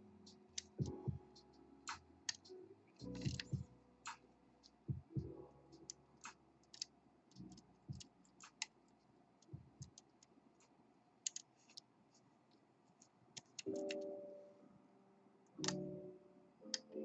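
Hook pick and tension wrench working the pin stacks of a pin-tumbler challenge lock: scattered small clicks and ticks, irregular, as pins are lifted, set and drop back. Near the end come two brief tonal hums lasting about a second each.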